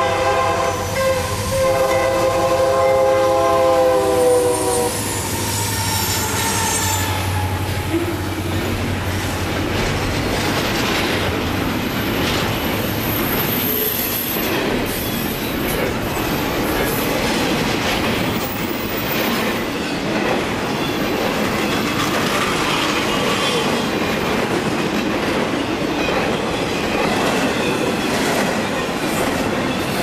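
Horn of a CN GE C40-8M diesel locomotive sounding a blast, cutting off about five seconds in. Then a loaded double-stack intermodal freight rolls past, steel wheels clattering on the rails with brief high wheel squeal.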